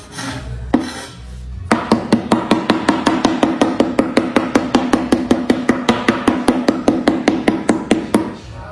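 Music with a fast, even ticking beat, about seven clicks a second over a steady held tone. It starts a couple of seconds in and stops shortly before the end.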